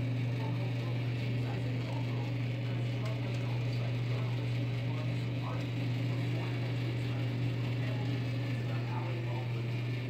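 Commercial countertop rotisserie oven running with a steady low hum.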